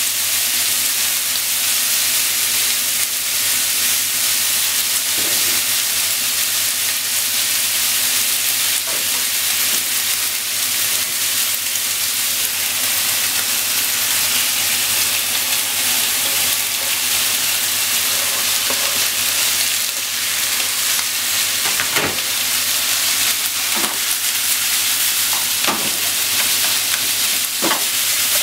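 Sliced pork and onion sizzling steadily in a frying pan. Near the end come a few sharp clicks of chopsticks against the pan as the vegetables are stirred in.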